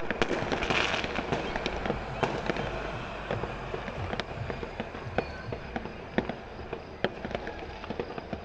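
Fireworks and firecrackers going off: many sharp bangs at irregular intervals over a steady noisy background, busiest and loudest in the first couple of seconds.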